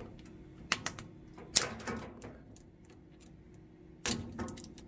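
Pliers pinching a spring hose clamp and working it onto a hose at a plastic bleed tee: a few sharp metal clicks and snaps, the loudest about one and a half seconds in with a short rattle after it, and two more near the end.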